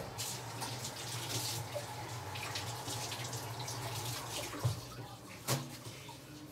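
Kitchen tap running steadily into a sink, stopping about three quarters of the way through with a knock, followed by another knock about a second later.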